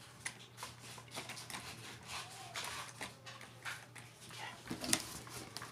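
Cardboard box being cut and worked by hand to widen an opening: scattered crunching, scraping and clicking of cardboard, with a sharper crack about five seconds in.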